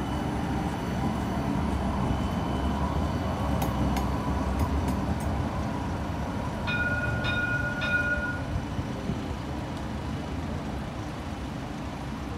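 Urbos 100 light rail tram running past and moving off across an intersection: a steady low rumble. About two thirds of the way in, a bell-like chime rings three times, about half a second apart.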